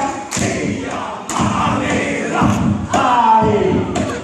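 A group performing a haka, shouting a chant in unison, with sharp thumps about once a second. About three seconds in, one long shout falls in pitch.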